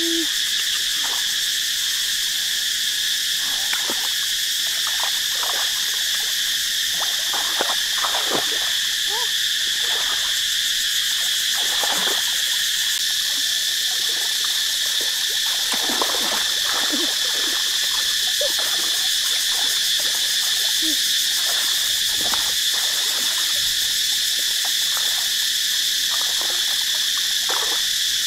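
A dense chorus of frogs and insects calling, a steady high-pitched drone with short lower calls scattered through it.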